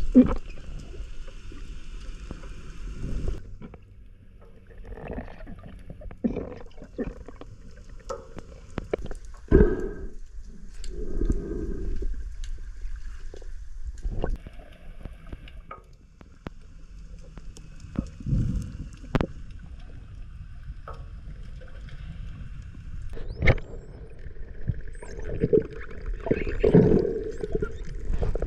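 Underwater sound picked up through a diver's camera housing: muffled water rushing in irregular surges, with several sharp knocks. Faint steady high tones sit over it at the start and again for the last several seconds.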